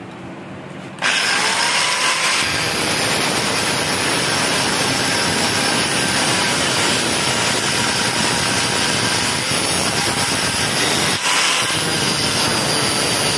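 Angle grinder with a thin cutting disc, started about a second in and then running steadily as it cuts into a ribbed steel rebar clamped in a vise. Late on its sound dips briefly and then picks up again.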